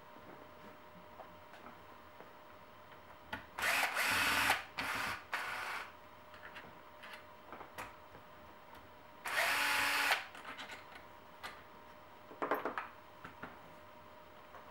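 Cordless power drill/driver run in short bursts while backing out screws from the RC truck's plastic chassis: three quick runs about four to six seconds in and another around nine to ten seconds, with light clicks between.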